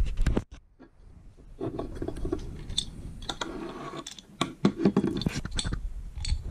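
Scattered clicks, knocks and scraping from handling airsoft gun parts and a screwdriver on a wooden table. A short pause about half a second in, then the handling noise picks up again.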